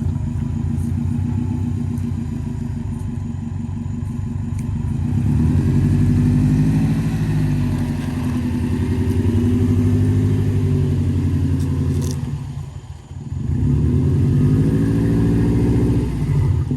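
A vehicle engine running under load, its pitch rising about five seconds in, then dropping briefly near thirteen seconds, as at a gear change, before climbing again.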